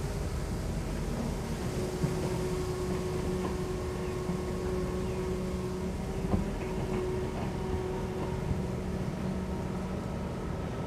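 Kobelco SK200 long-reach excavator's diesel engine running steadily under digging load, with a steady whine over the drone. Two sharp knocks stand out, one about two seconds in and another just past six seconds.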